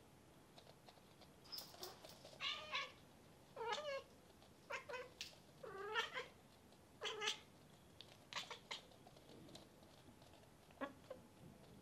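Bengal cats meowing: a run of about eight short meows, some bending up or down in pitch, with one more near the end.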